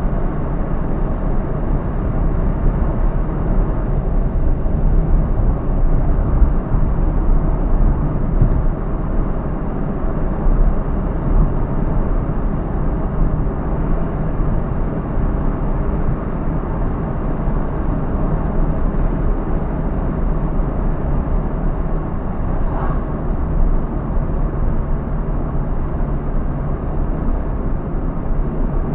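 A car driving along a road: steady engine and tyre rumble, with a brief high chirp about three-quarters of the way through.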